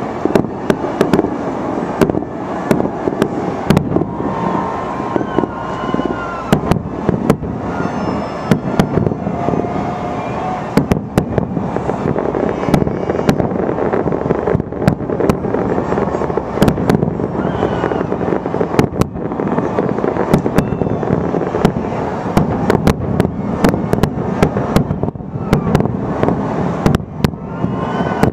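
Aerial fireworks display going off without a break: many sharp bangs and crackling pops over a steady din of overlapping bursts.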